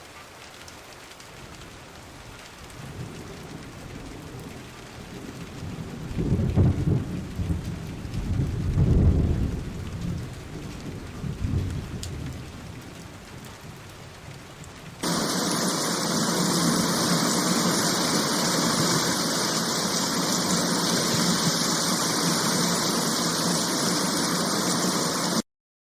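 Rain falling, with thunder rumbling low twice in the first half. Past the middle it switches abruptly to a loud, steady downpour hiss, which cuts off suddenly near the end.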